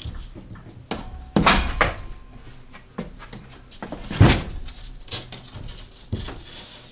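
A large LP multi-use ceiling panel knocking and scraping against the wooden ceiling framing as it is pushed up and slid into place overhead: a series of thumps and scrapes, the loudest about four seconds in.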